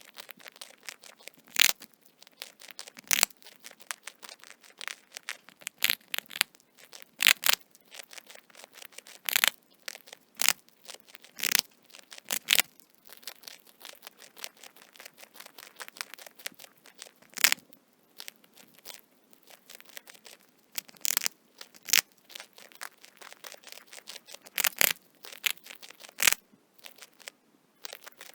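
A rat nibbling and gnawing at food: a continuous patter of small, irregular crunchy clicks, broken every second or two by a louder crunch.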